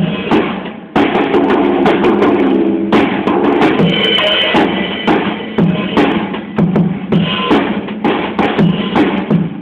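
Drum kit played live: a dense run of drum and cymbal hits with a brief break just before a second in.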